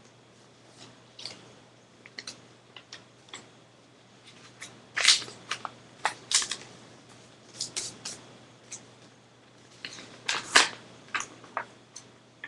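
Sheet of paper being folded and handled: irregular crinkles and crisp snaps as it is creased and shaped, loudest about five seconds in and again a little past ten seconds.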